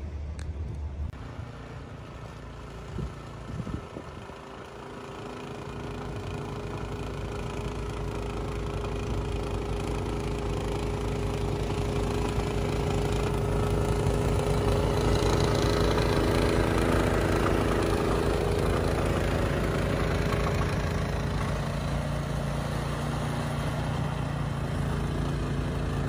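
A two-stage snowblower's small gasoline engine running steadily while the machine throws snow. It comes in a few seconds in and grows louder over the next several seconds.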